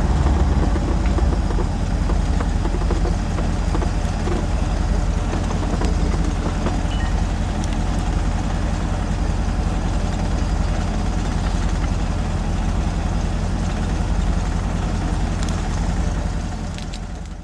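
1956 Chevy 3100 pickup driving at steady speed, its engine running with a low rumble heard from inside the cab, with road noise. The sound fades out near the end.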